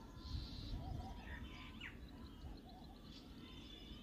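Birds chirping and calling faintly, in short scattered chirps and trills, over a low steady rumble of outdoor background noise.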